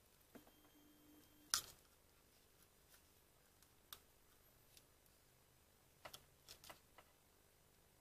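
Near silence broken by a few small handling clicks and knocks, the loudest about one and a half seconds in and a cluster of several near the end.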